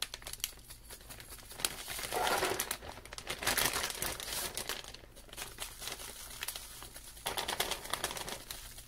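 Plastic zip-top bag crinkling and rustling as it is handled, with black pepper being shaken into it from a shaker in short bursts.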